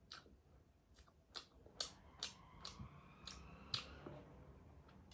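Faint, scattered sharp clicks and light taps, about eight in five seconds, from eating and handling sweets close to the microphone.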